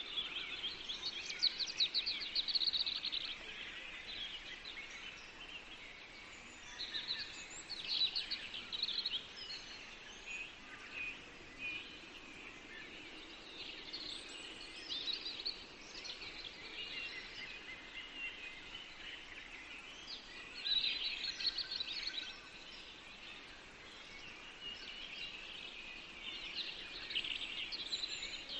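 Small birds singing in repeated bouts of rapid, high trills and chirps, several times through the stretch, over a faint steady low background hum.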